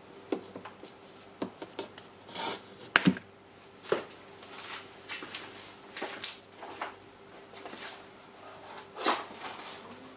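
Small plastic and metal motor parts of a cordless impact wrench being handled on a workbench: scattered light clicks, taps and rubbing, with sharper knocks about three and four seconds in and again near the end.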